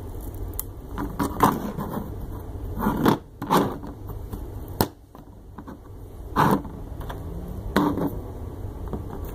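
Handling scrapes and clicks as stepper motor driver modules are pushed by hand onto the pin headers of a Sanguinololu control board, with a sharp click about halfway through.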